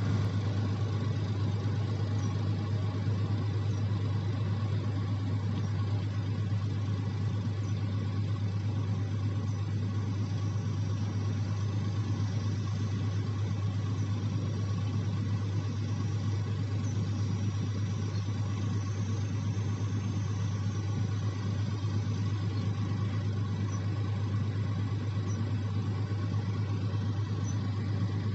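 An engine running steadily at an even speed, with a low constant hum.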